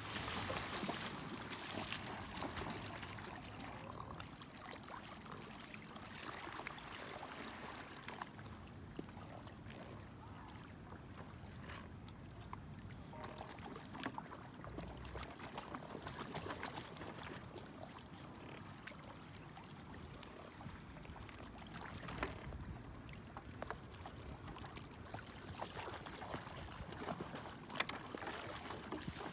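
River water splashing and lapping around a bamboo raft as a pole is worked in the water, with a few sharp knocks now and then.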